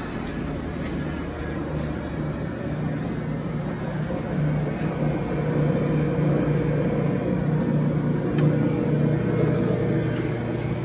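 Hobart H600 planetary mixer's three-phase motor and gearbox running unloaded with an empty bowl: a steady hum with a fainter higher tone above it.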